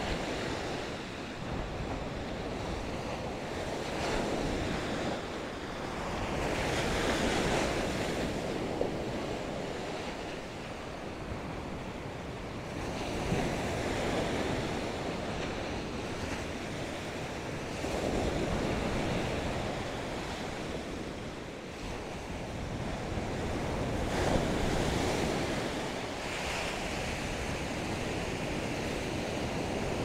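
Ocean surf breaking on a sandy beach, a steady wash that swells louder several times as waves come in, with wind rumbling on the microphone.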